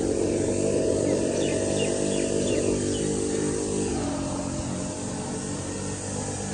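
Engine of a sewer-cleaning machine running steadily, its tone sinking a little about four seconds in as if easing off load. A few faint bird chirps come over it in the first half.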